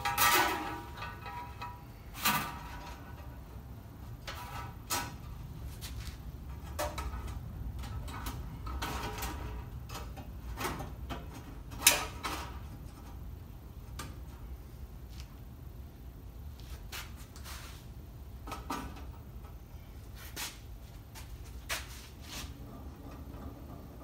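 Handling noises from fitting a new blade on a DoAll vertical bandsaw: scattered clicks and knocks as the blade and parts are worked by hand, the sharpest about twelve seconds in, over a low steady hum.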